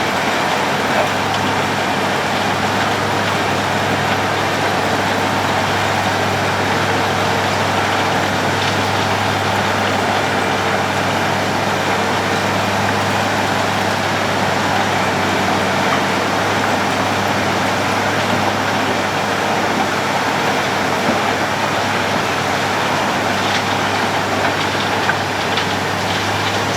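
Road planing machine at work: a steady low engine drone under a dense, even noise, unchanging throughout.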